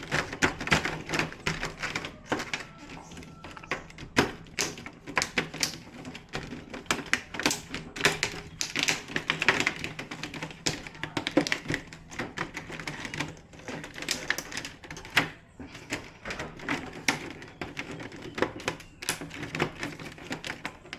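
Irregular clicks and taps of hands working inside an opened LCD TV's backlight assembly, handling plastic sheets, clips and LED bars.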